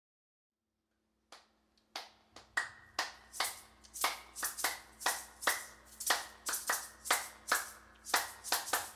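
Hands clapping a steady rhythm, about three claps a second, starting after a second or so of silence, over a faint steady low hum. The clapped beat is the intro to a song, with singing coming in right after.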